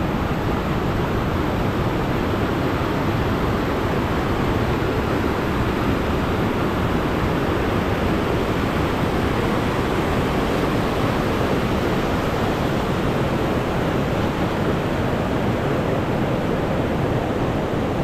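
Steady, loud rush of a big mountain waterfall and its torrent close by: the Sultan waterfall in Dzhily-Su, unchanging throughout.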